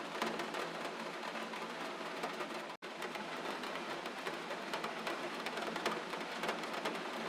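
Steady gentle rain with fine patter of drops on a surface, broken by a momentary dropout to silence about three seconds in.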